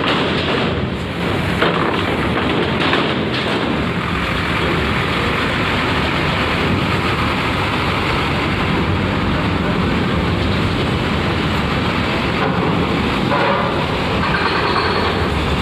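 Diesel engine of a large coach bus running at close range as it drives slowly past and up the ferry's loading ramp, over a steady din of port and ship machinery.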